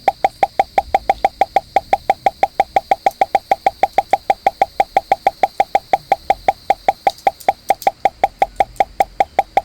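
Mechanical keyboard keys with PBT pudding keycaps tapped rapidly in a steady rhythm, about five or six clacky thocks a second, each with the same hollow pitch.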